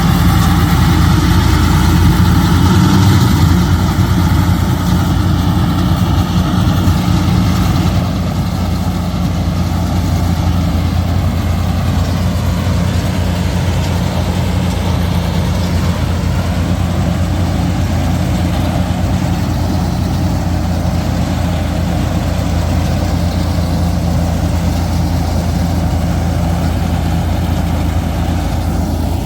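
Super Standard S50 mini combine harvester's engine running steadily, easing off slightly about eight seconds in.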